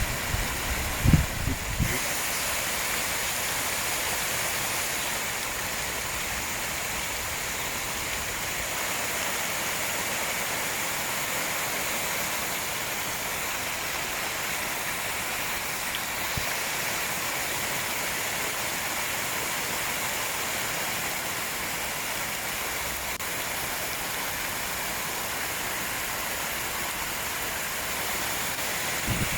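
Steady rush of flowing water, with a few low bumps in the first two seconds.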